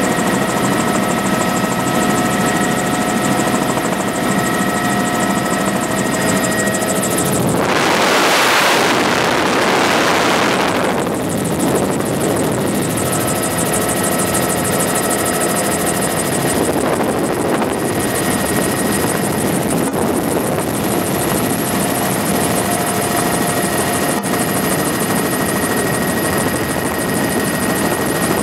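Helicopter cabin noise: a steady engine and rotor drone with high steady whine tones. About a third of the way through, a loud rush of noise swells for about three seconds and drowns the whine, then the steady cabin sound returns.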